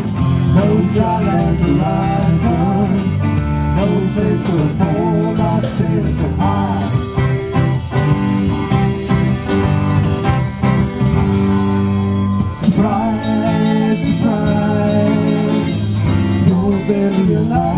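Live band of drums, bass, acoustic guitar and electric guitar playing an instrumental passage of a country-rock song. A lead line of bending, gliding notes runs over the steady rhythm.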